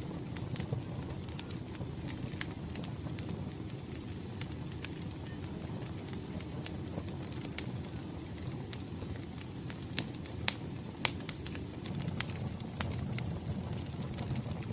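Wood fire crackling, with irregular sharp pops and snaps over a steady low rumble of the burning logs.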